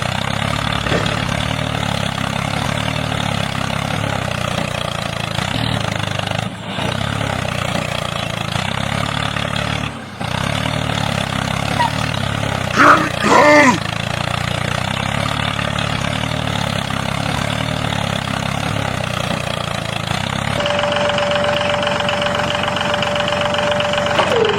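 Heavy-machine engine running steadily with an even drone. It is interrupted by two brief dropouts, and a short loud call comes about halfway through. Near the end a steady held tone sounds over the engine for a few seconds.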